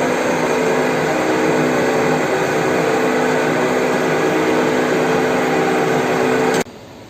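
Horizontal metal-cutting bandsaw running, with a steady motor hum under the blade noise. The sound cuts off abruptly about six and a half seconds in.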